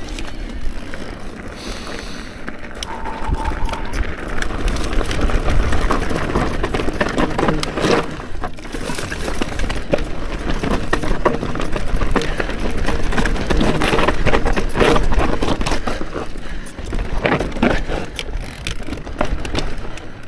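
Electric mountain bike riding over a rocky technical trail: tyres crunching and scraping on rock, with frequent knocks and rattles from the bike, over a constant low rumble of wind on the action camera's microphone.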